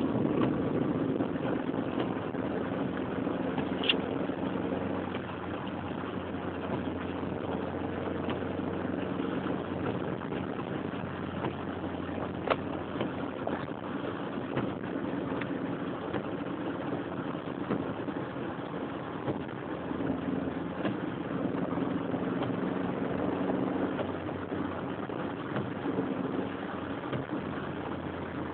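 Car engine and tyre noise heard from inside the cabin while driving slowly, steady with the engine note shifting a little, and two brief sharp clicks about four and twelve seconds in.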